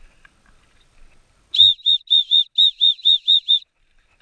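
Dog-training whistle blown in a quick run of about a dozen short pips, each rising and falling slightly in pitch, starting about a second and a half in.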